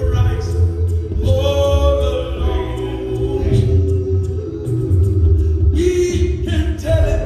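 A man singing a hymn unaccompanied, in long held notes.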